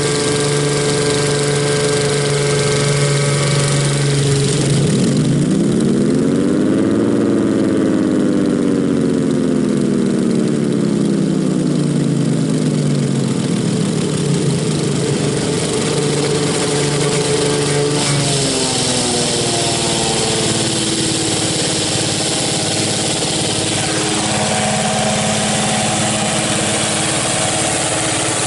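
Federal Signal Thunderbolt 1003 outdoor warning siren running with a steady mechanical hum. About five seconds in, a siren tone rises for two seconds and then slowly winds down over about six seconds; the steady running sound shifts pitch again later on.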